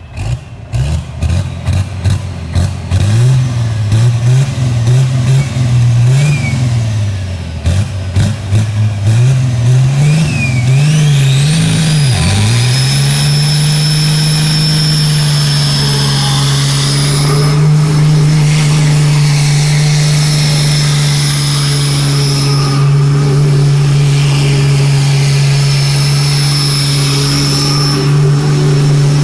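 Semi tractor's diesel engine revving up and down repeatedly during a burnout, then held steady at high revs from about halfway through. A high whine rises with it and then holds, and sharp pops sound during the first several seconds.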